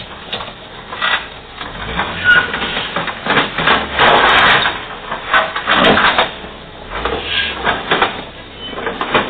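Metal roller shutter being forced up by hand, rattling and scraping in irregular clattering bursts, the loudest about four seconds in.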